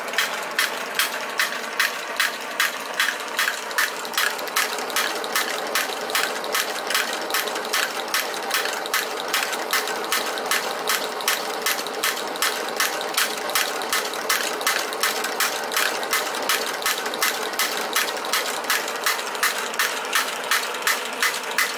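Model Stirling engine belt-driving a Wilesco toy drop hammer: the hammer clacks up and down at an even two to three strikes a second. Under it is a steady hiss from the engine's burner.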